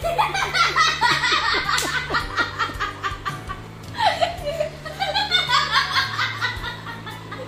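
A group of women laughing hard, in two long bouts with a short lull about three seconds in.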